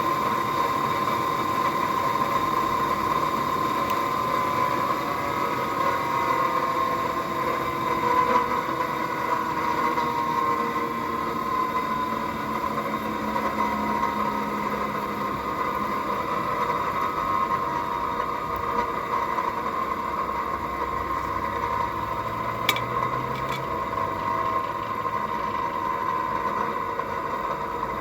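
Steady mechanical drone: a motor's hum with a slowly wavering pitch, with one sharp click about 22 seconds in.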